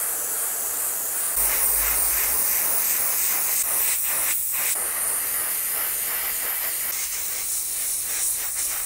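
Airbrush spraying paint onto a small 3D-printed fishing lure: a steady, high hiss of air and paint, broken off briefly about four seconds in as the trigger is let go, then resumed.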